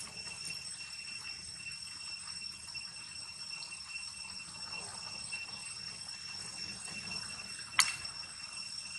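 Steady, high-pitched insect drone, one unbroken tone, with a single sharp click near the end.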